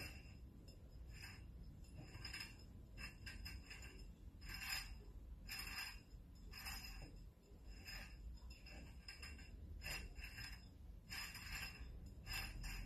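Glass beer bottle being turned by hand on the rollers of a homemade hot-wire bottle cutter, the glass giving faint squeaks and clinks about once a second. The resistance wire is heating a line around the bottle, just before it cracks off.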